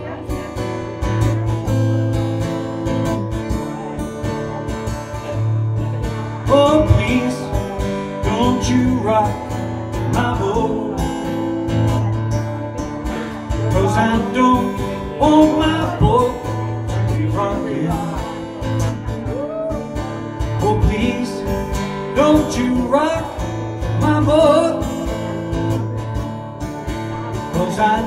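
Acoustic guitar strummed, with a man singing along to it for most of the stretch.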